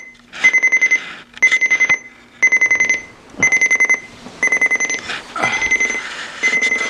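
Sony clock radio's alarm going off: loud bursts of rapid beeps, repeating about once a second. A rustle is heard around the middle.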